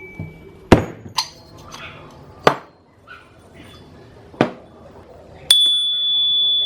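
Steel struck with sharp metal knocks, a second or two apart. The last, about five seconds in, rings on with a clear high tone for over a second.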